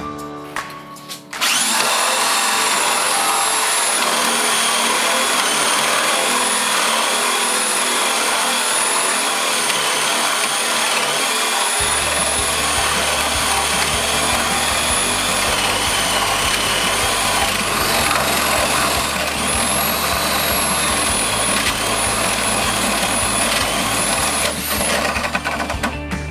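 ZUBR DSh-M3-500-2 corded drill-driver running, a steady motor whine that wavers slightly in pitch and rises briefly a couple of times near the end.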